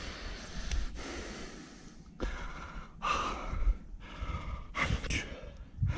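A person breathing heavily: several loud breaths and gasps, one after another.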